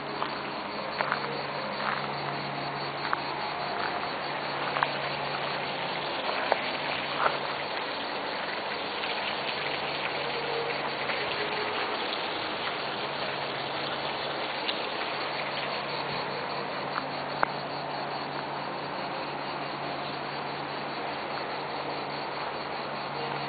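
Steady chirring of insects outdoors, under a low steady hum, with a few sharp clicks scattered through, most in the first third.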